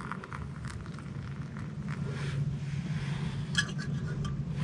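Hot water poured from a small metal pot into an AeroPress, a steady trickling stream over a low hum, with a few light metal clinks about three and a half seconds in as the pour ends.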